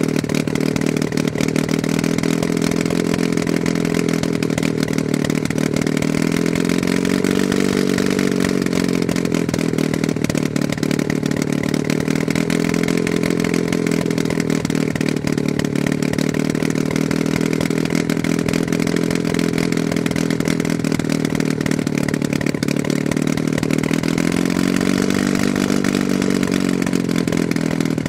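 Ken Brock KB-2 gyrocopter's McCulloch two-stroke flat-four engine running with its pusher propeller turning, loud and steady. The revs rise and fall back three times: about 7 seconds in, about 13 seconds in and near the end.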